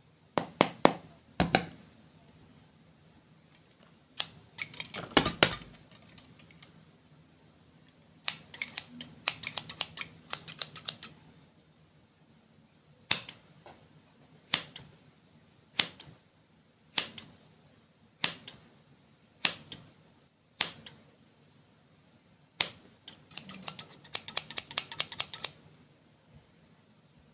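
Clay and slime being handled, making sharp clicks and crackles: three bursts of fast crackling, then eight single clicks spaced a little over a second apart, then another burst of crackling near the end.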